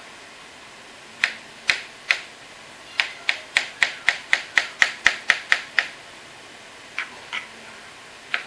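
Knife chopping mushrooms on a cutting board. Three separate strikes come first, then a quick run of about a dozen strikes at roughly four a second, then a few more spaced strikes near the end.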